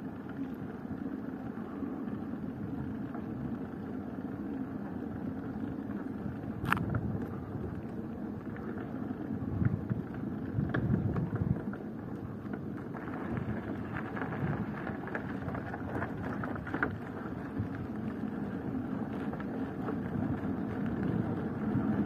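Steady outdoor background rumble, with one sharp click about seven seconds in.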